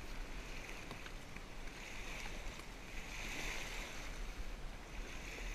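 Small lake waves lapping at a pebbly shoreline, the wash swelling and easing, with a steady low wind rumble on the microphone.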